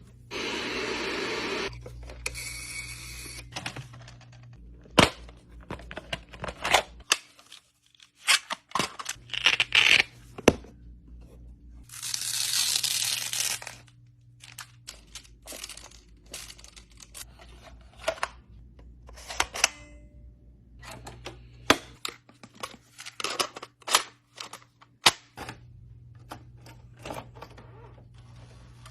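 Irregular clicks and knocks from small hard objects being handled, with two longer rushing, tearing-like noises, one at the start and one about twelve seconds in.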